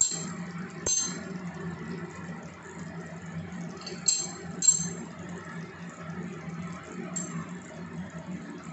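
About five short, light clinks against a metal cooking pan of fish curry, two of them close together midway, over a steady low background noise.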